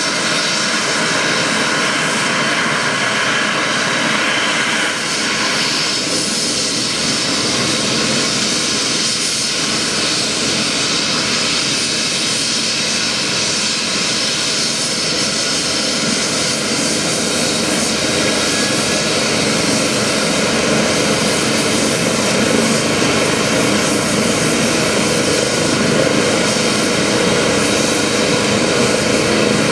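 Eurocopter EC 135 helicopter running on the ground with its rotor turning: a steady turbine whine and rotor noise from its twin turbine engines, growing a little louder and fuller in the second half.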